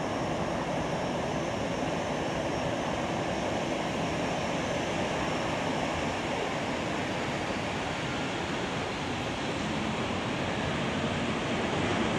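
Jet engines of an Airbus A321 airliner running steadily as it rolls on the ground, a smooth even rush that grows slightly louder near the end.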